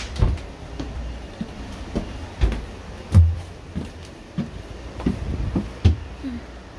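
Footsteps and knocks going up the stairs of a bi-level Amtrak Superliner coach and along its upper-level aisle: a dozen or so irregular thumps, the loudest about three seconds in, over a steady low hum from the stopped train.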